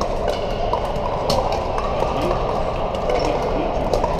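Pickleball paddles popping against plastic balls across many courts at once: scattered sharp pops over a steady murmur of players' and spectators' voices.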